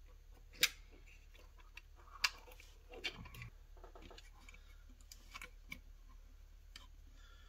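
Scattered light clicks and taps of an 18650 battery charger's plastic housing and circuit board being handled and pressed together during reassembly, the sharpest clicks about half a second and two seconds in.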